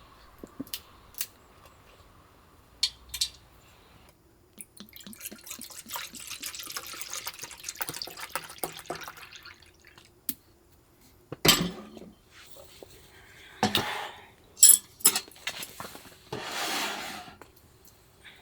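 Dishes and cookware being handled, with liquid pouring for several seconds, then a few sharp clinks and knocks, and another short pour near the end.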